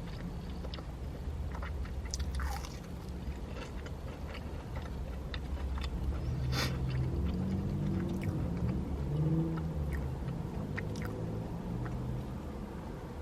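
A person chewing and biting fast food close to the microphone, with scattered small wet clicks of mouth sounds.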